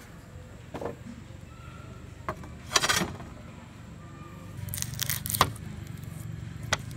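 Knocks and clatter of a plate and wooden utensils set down on a bamboo slat table, loudest about three seconds in and again in a quick cluster around five seconds. Near the end a large bolo knife cuts into an onion with a click against a round wooden board.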